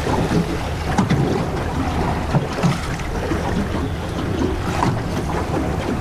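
Wind buffeting the microphone over a steady low rumble, with choppy waves slapping against a small boat's hull in irregular knocks and splashes.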